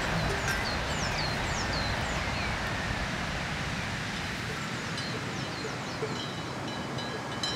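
Small birds calling with quick, high chirps that sweep downward, in a run during the first couple of seconds and again past the middle, over a steady outdoor rushing hiss.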